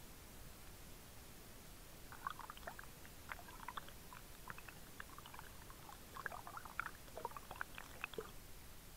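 Water bubbling and gurgling underwater: a scattered run of short, small plinks and brief chirps that starts about two seconds in and stops about a second before the end.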